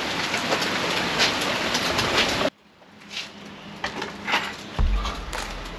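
Steady hiss of rain pattering, which cuts off abruptly about halfway through. After that come quieter scattered scrapes, and low beats of music come in near the end.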